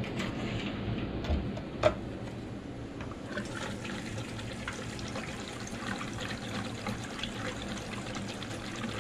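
Gasoline pouring from a metal gas can through a plastic funnel into a small Briggs & Stratton engine's fuel tank in a steady trickle, with one sharp clack about two seconds in.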